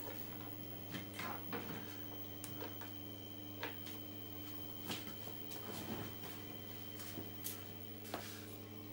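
Steady low electrical hum with scattered clicks, knocks and rustles as an audio cable is plugged in behind the computer speakers.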